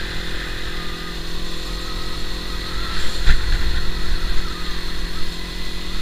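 Motorcycle engine running steadily while riding, with a low rumble beneath its even tone.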